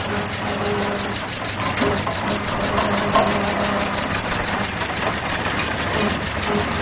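Diesel engine of an Aveling Barford road roller running steadily at a slow idle, with an even knocking beat of about six or seven pulses a second.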